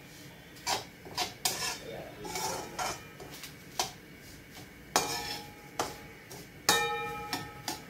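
Perforated steel spatula scraping and knocking against a steel kadhai while stirring dry semolina as it roasts. The strokes come irregularly, with two louder ringing metal clanks about five seconds in and shortly before the end.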